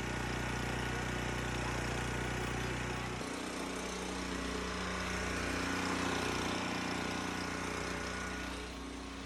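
Champion portable generator's small engine running steadily; about three seconds in its note shifts, the low hum changing pitch pattern, then it runs on evenly.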